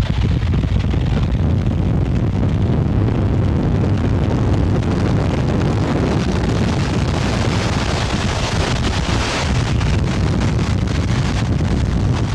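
Tornado winds passing directly over a highway overpass, a continuous loud rushing roar heaviest in the low end, buffeting the microphone. Like a freight train.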